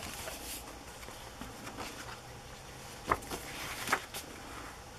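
Thick paper pages of a handmade journal being turned by hand: faint rustling with a few light taps and flicks, the clearest about three seconds in and again near four.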